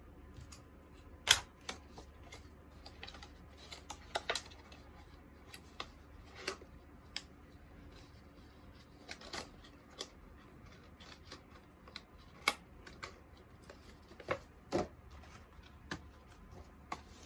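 Irregular clicks, taps and light rustles of small objects being handled, the sharpest click about a second in.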